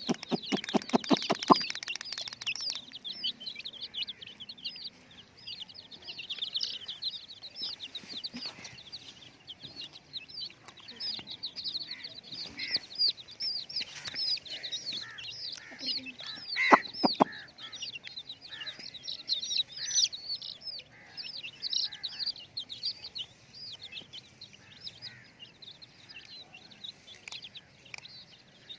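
A flock of young chicks peeping continuously, many short high-pitched calls overlapping. In the first second and a half a rapid train of buzzing pulses sounds with them, and about 17 s in there is one louder, lower call.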